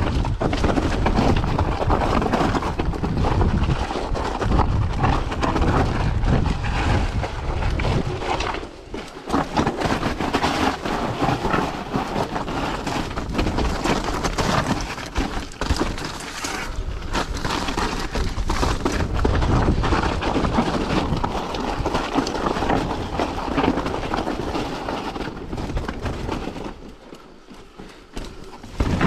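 Mountain bike riding fast down a rough, rocky trail: tyres crunching over rock and loose gravel, with the bike's chain and suspension clattering over the bumps and wind buffeting the camera microphone. It goes quieter for a moment about nine seconds in and again near the end.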